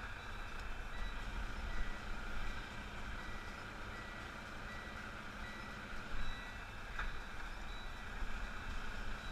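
Semi truck's back-up alarm beeping at an even pace, about two beeps a second, over the low, steady running of the diesel engine, heard from inside the cab while reversing. A single sharp click about seven seconds in.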